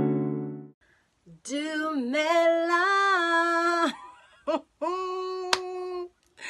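An acoustic guitar chord from the intro music rings and fades out in the first moment. Then a woman's voice sings two long drawn-out notes with no clear words, the first about two and a half seconds long with a slight rise and fall, the second shorter and steady, with a brief vocal sound between them.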